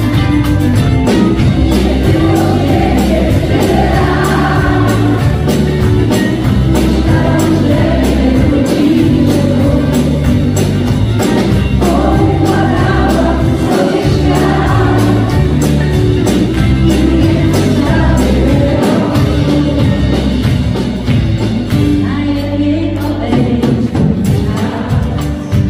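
Live pop band playing a song: a woman singing lead with a backing vocal, over keyboards, electric guitar, bass and a drum kit keeping a steady beat.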